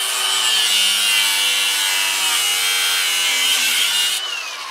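Cordless grinder cutting through the rusted exhaust pipe: a steady high whine over the hiss of the disc grinding metal. Its pitch drops slightly near the end, and it stops just after.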